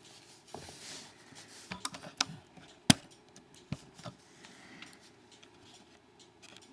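Small scattered metallic clicks and taps, the sharpest about three seconds in, as a padlock's plug is pushed out with a plug follower and its pins come loose.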